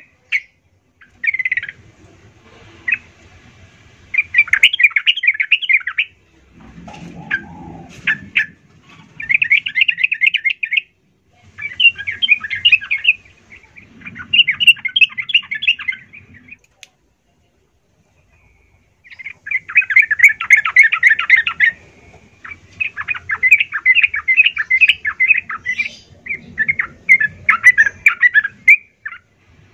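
Yellow-vented bulbul in full song: repeated phrases of fast chattering notes, each a second or two long, with a pause of a couple of seconds a little past the middle.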